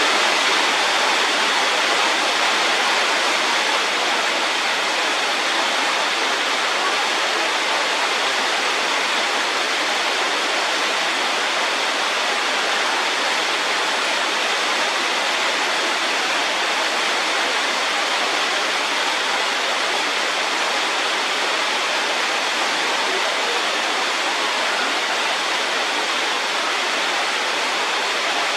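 Steady, unbroken rushing noise at an even level, like running water or static hiss.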